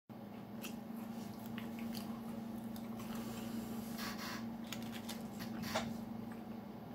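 A person chewing food with small wet, crunchy mouth clicks, over a steady low hum. A sharp click stands out a little before the end.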